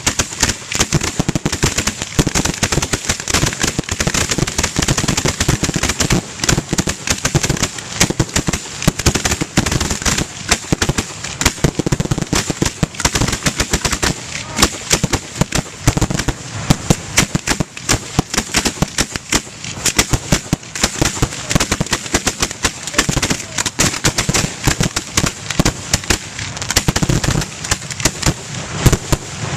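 A fireworks display going off, a dense, unbroken run of sharp cracks and bangs with no pause.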